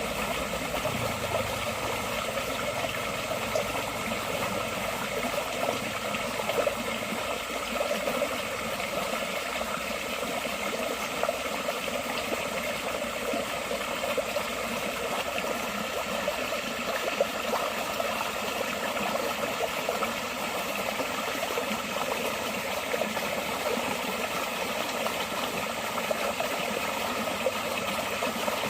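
Forest stream flowing steadily, a continuous babbling rush of water.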